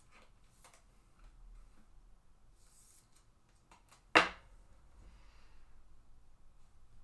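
Light handling clicks and a brief rustle of trading cards and plastic, then one loud, sharp plastic clack about four seconds in as the card is put into a rigid clear card holder.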